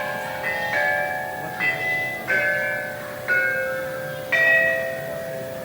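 Robot band playing the closing notes of a tune on a bell-like chime instrument: about six single struck notes, each ringing and fading, roughly a second apart, over a held lower chord.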